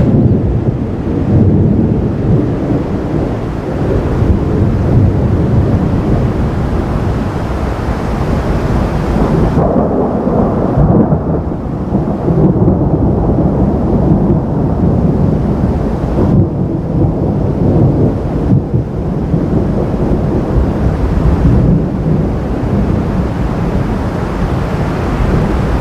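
Thunder from a lightning storm rumbling in long, loud, low rolls that keep going without a break.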